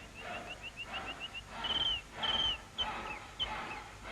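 Hand saw sawing in a steady back-and-forth rhythm, with birds chirping over it. A quick run of short chirps comes first, then two louder trilling warbles about halfway through, then single chirps.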